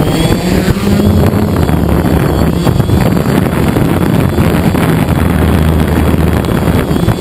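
DJI Phantom quadcopter's motors and propellers running loud and steady during lift-off and climb, heard through its on-board camera along with propeller wash on the microphone.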